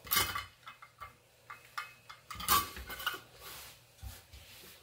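Stainless steel measuring cup knocking and scraping against a cutting board as shredded beets are scooped and packed into it by hand: a series of short, irregular knocks, loudest right at the start and again about halfway through.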